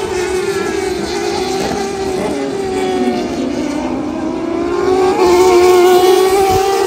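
A pack of Turismo Carretera race cars running together along a straight, their engines a dense, overlapping drone. The engine pitch falls to a low point about three seconds in, then climbs again, and the sound grows louder in the last couple of seconds as the cars come up close.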